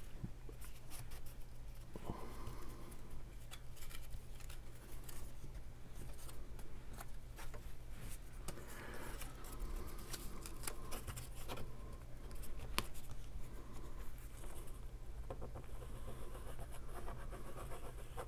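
Kraft cardstock rustling and scraping, with faint scattered taps, as hands press and slide box-card pieces into place over a steady low hum.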